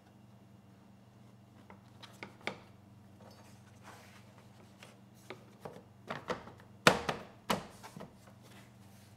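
Hard plastic rear cover of a Yamaha EF3000iSE generator being handled and pressed into place on the frame: scattered knocks and rubbing. A quick run of louder clacks and snaps comes about two-thirds of the way through.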